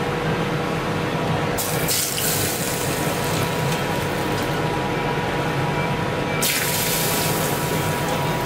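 Water running steadily from a tap, with the flow growing brighter about a second and a half in and again past the middle.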